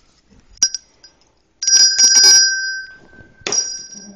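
A small bell struck once, then rung rapidly for about a second with its high tones ringing on and dying away. It is struck again near the end and rings on.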